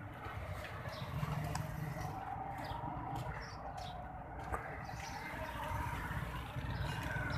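Street traffic: motorcycle and car engines running and passing, with birds chirping now and then.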